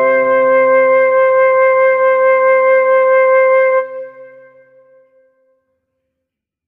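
Background music: one long held note that fades out about four seconds in.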